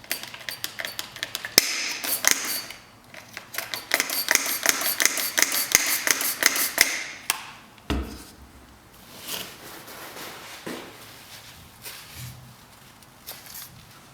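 Rapid metallic clicking and tapping, each tap with a short ringing note, for about seven seconds. Then a single thump about eight seconds in, followed by softer handling noises.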